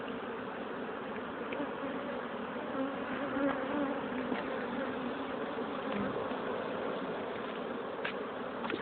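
Steady, dense buzzing of a honeybee colony around an opened hive as its frames are handled, with a couple of light knocks near the end.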